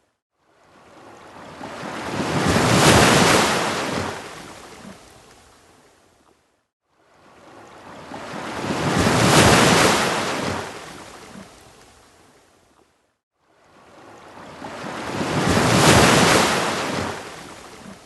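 Ocean waves breaking on a beach: three waves, each swelling up and washing back over about six seconds, with a brief silent gap between them.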